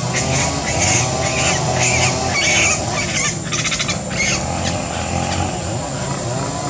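Short, high-pitched animal calls repeating about twice a second, with a quick rattling trill about three and a half seconds in, over a steady low hum. The calls stop after about four and a half seconds, leaving the hum.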